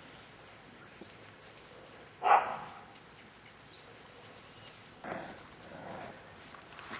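Staffordshire Bull Terrier puppies at about five weeks old: one puppy gives a single short, loud yip about two seconds in, and softer puppy noises with thin high squeaks follow from about five seconds in.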